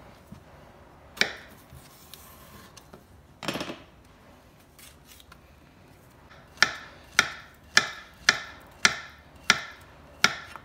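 A kitchen knife slices a peeled banana on a plastic cutting board: seven sharp knocks of the blade on the board, a little under two a second, starting past the middle. Two single knocks come before it, about one and three and a half seconds in.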